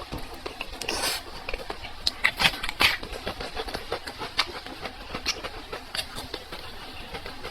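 Close-up eating sounds of a person chewing food: irregular mouth clicks and smacks, with a few louder ones in the first three seconds.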